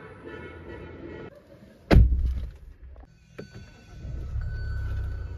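The driver's door of a Kia Sonet shut with one loud thud about two seconds in, followed by a small click. About four seconds in a steady dashboard beep starts over a low hum as the car's electrics come on.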